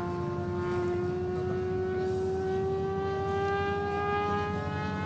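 Motor and propeller of a radio-controlled model Corsair airplane flying overhead: a steady whine whose pitch slowly rises.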